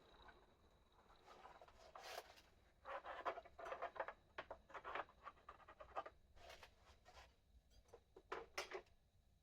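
Irregular short scraping and rubbing strokes from hand bodywork on a Super Cub part, clustered about two seconds in and dying away near the end.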